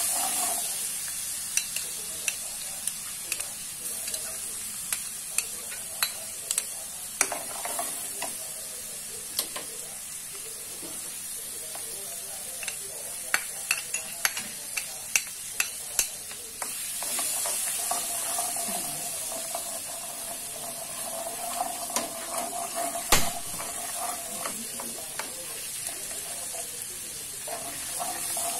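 Small anchovies sizzling as they fry in hot oil in a wok, with a spatula stirring them and clicking and scraping against the pan. One louder knock comes about two-thirds of the way through.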